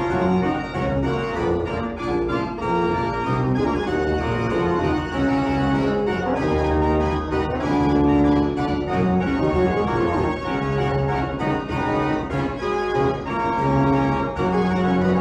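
Organ music: held notes and chords that change pitch every second or so.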